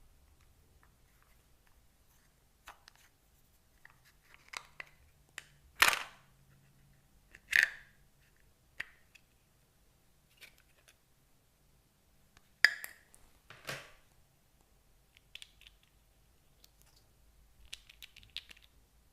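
Slime being mixed and squished by hand: scattered short sticky clicks and squelches, with four louder pops about six, seven and a half, thirteen and fourteen seconds in.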